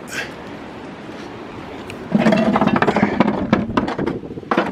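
Power window motor in a car door running for about two seconds, starting about two seconds in, with a rough, rattling buzz; a few light clicks come before it.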